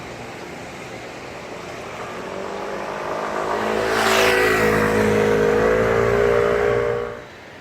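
Road traffic: a motor vehicle approaches and passes close by, building to its loudest about four seconds in with a falling whoosh as it goes past. Its engine hum holds steady afterwards, then the sound drops away sharply near the end.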